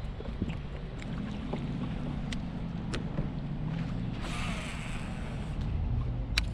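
A fishing kayak on the water, with wind on the microphone giving a steady low rumble. Scattered light clicks and knocks come through, a short hissing rush about four seconds in, and a sharper click near the end.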